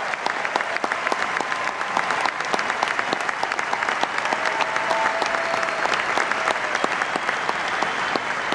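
Large crowd applauding steadily: dense, continuous clapping.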